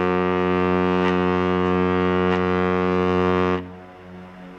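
The ship's horn of the cruise ferry Viking Grace sounds a warning signal: one long, steady blast on a deep note rich in overtones. It cuts off abruptly about three and a half seconds in.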